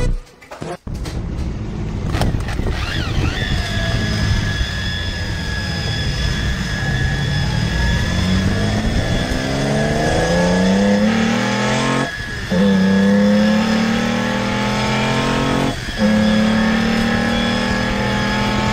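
Car engine accelerating hard through the gears. Its note climbs steadily, then drops sharply at gear changes about 12 and 16 seconds in, with a steady high whine over it.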